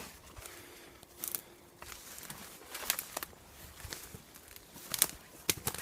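Footsteps on a woodland floor, with irregular crackles and snaps of dry twigs and leaf litter underfoot.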